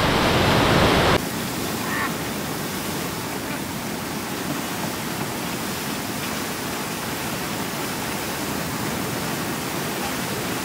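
Flood-swollen river water rushing through the beach into the surf, a steady churning rush of water. A louder stretch cuts off suddenly about a second in, leaving a steadier, quieter rush.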